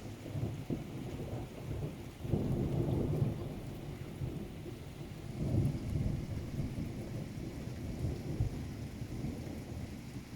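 Thunder rolling in a thunderstorm, a long low rumble that swells about two seconds in and again around the middle, over steady rain.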